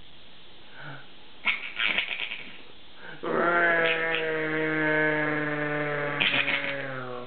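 An adult's voice making a long, low, steady droning "airplane" noise for about four seconds as a spoonful of carrots is flown toward a baby's mouth, with the baby's giggles in short high bursts before and during it.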